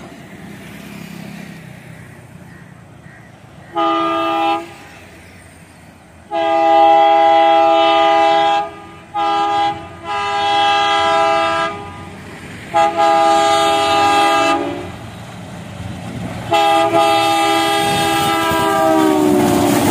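ALCO WDG3A diesel locomotive sounding its multi-tone horn as it approaches: six blasts, short and long. The last long blast slides down in pitch as the locomotive passes, and the rumble of the train on the rails rises near the end.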